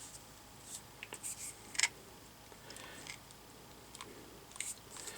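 Apollo PEX crimp ring cutter squeezed on the edge of a crimp ring: a few short, sharp clicks and snips as the jaws bite partway into the ring.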